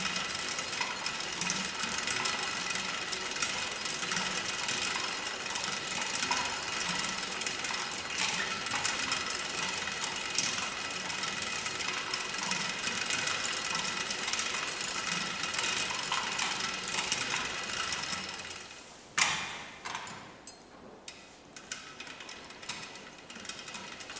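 W.F. & J. Barnes No. 4½ pedal-driven velocipede lathe running with its carriage on power feed: a steady whir and fine clatter of gears and belt. The sound dies away about 18 seconds in, with one sharp click about a second later and faint ticking after.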